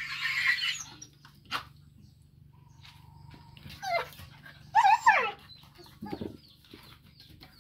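A dog and a pet monkey play-fighting: a scratchy squeal at the start, a short falling yelp about four seconds in, two loud falling yelps just before five seconds, and a short low growl about six seconds in.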